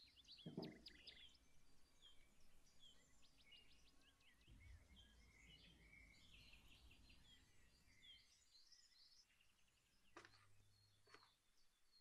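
Faint birds chirping, with many short chirps and whistles overlapping, and a few soft thuds near the start and near the end.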